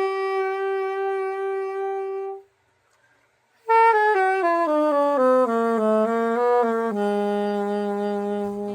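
Yamaha YSS-475 soprano saxophone played solo: a long held note, a short break, then a falling run of notes that ends on a long low note near the bottom of the horn's range.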